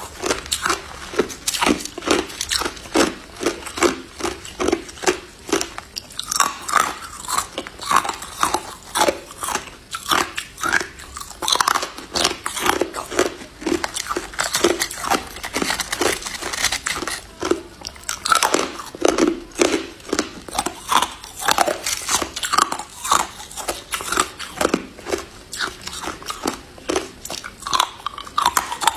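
Crushed ice being bitten and chewed: a continuous run of sharp, crisp crunches, several a second.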